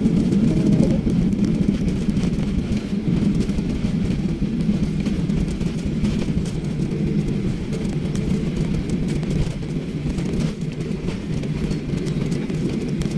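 Cabin noise of a jet airliner on its landing roll just after touchdown: a loud, steady low rumble of engines and tyres on the runway, easing off slightly as the aircraft slows.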